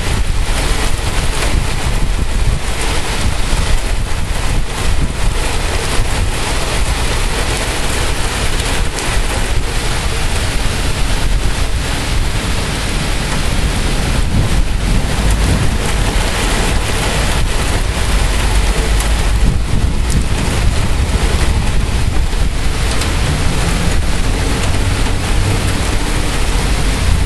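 Heavy thunderstorm downpour: rain pouring steadily and loudly, with wind buffeting the microphone in a constant low rumble.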